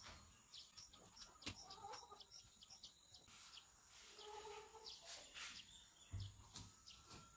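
Near silence: faint clicks and scrapes of a spoon scooping watermelon flesh, with faint short bird chirps in the background.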